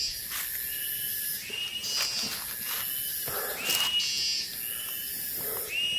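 Forest animal chorus: a whistle-like call that rises and then holds, repeating about every second and a half, over a high shrill buzz that cuts in and out.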